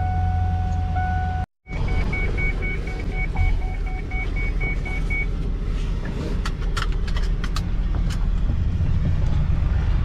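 Van engine running with a steady low hum while a dashboard warning chime sounds, first as a steady tone and then as a quick, evenly repeating beep that stops about halfway through. A few light clicks follow near the end.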